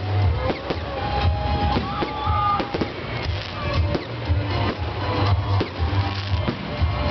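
New Year fireworks: a string of bangs and crackles over loud music with a pulsing bass beat.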